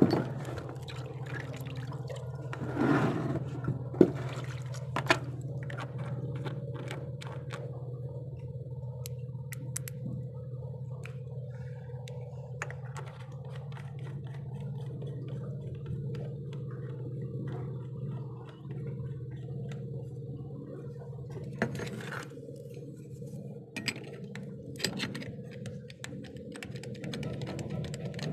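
Occasional metal clicks and knocks of parts and tools being handled on a Bosch in-line diesel injection pump, over a steady low mechanical hum. The knocks cluster in the first few seconds, with a few more later on.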